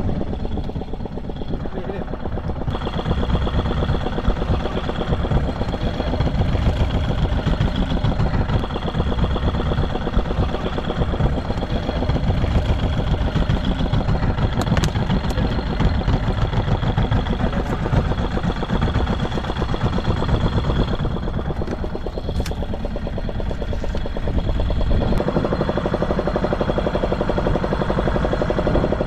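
Fishing boat's engine running steadily at idle, a continuous mechanical drone whose tone shifts a few seconds in and again near the end.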